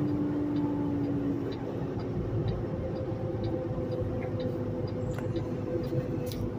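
Semi truck's diesel engine and road noise heard from inside the cab while rolling slowly, a steady drone whose hum drops slightly in pitch about a second and a half in. Faint ticking about twice a second runs underneath.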